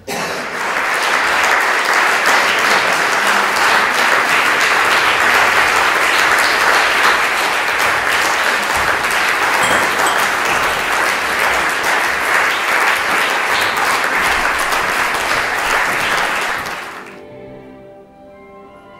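An audience applauding loudly and evenly, dying away about seventeen seconds in. Quiet music with held notes follows.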